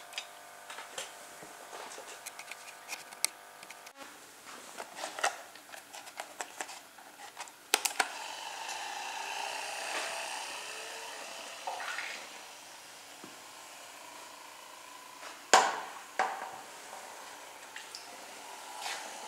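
A toy boat's small electric motor running with a steady whir, among clicks and knocks from handling, with one sharp knock about fifteen seconds in.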